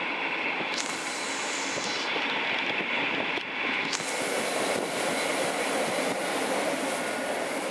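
Railway train noise: a steady rolling rumble, with a hiss that comes in suddenly about a second in and again at about four seconds.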